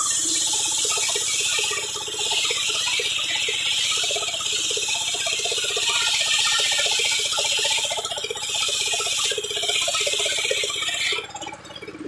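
Belt-driven circular saw bench ripping a board lengthwise: a loud, high rasping hiss over a rapid rattle. It stops about eleven seconds in as the cut finishes, leaving the spinning blade humming more quietly.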